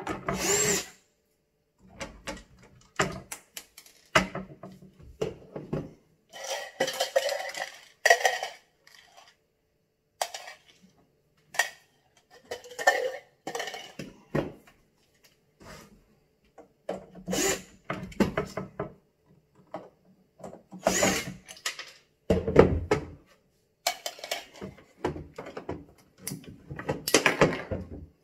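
Cordless drill driver running in short, irregular bursts, backing out cabinet door hinge screws, between knocks and clatter of the metal hinges, screws and the wooden cabinet door being handled.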